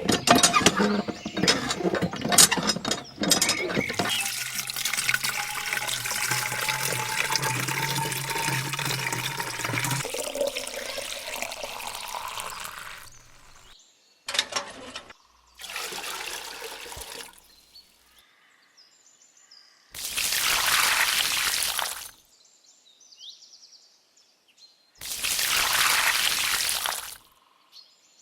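Water pouring and splashing from a miniature water pump. For several seconds it comes with a low hum and a slowly rising tone, then fades out, and later comes three short gushes.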